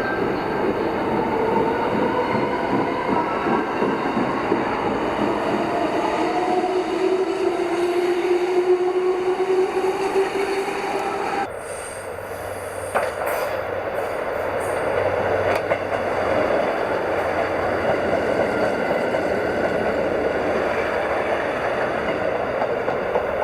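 Electric train running, with a whine that slowly rises in pitch for the first half and cuts off abruptly about halfway through. After that comes a steady rolling rumble with a few sharp clicks.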